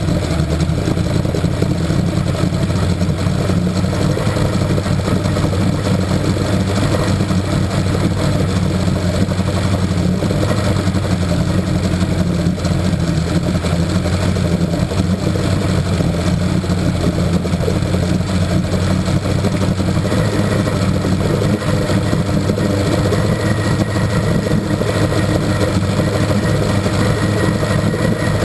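1964 Evinrude Starflite two-stroke V4 outboard motor running steadily, with its lower unit in a test barrel.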